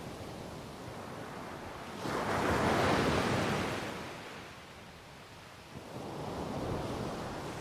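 Ocean waves breaking: one loud surge of surf comes in about two seconds in and washes away over the next two seconds, and another begins to build near the end.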